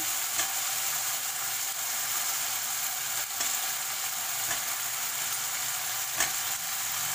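Fried chicken pieces sizzling in Manchurian sauce in a kadhai, a steady hiss, while a steel spoon stirs them with a few light clicks against the pan, the sharpest near the end.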